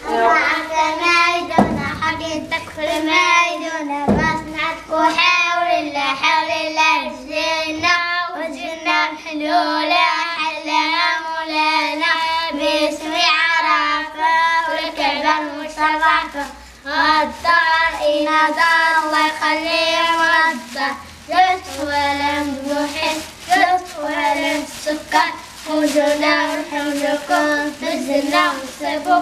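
Young boys' voices singing a chant-like song in Arabic, phrase after phrase. It is the door-to-door song children sing to ask for gifts of flour.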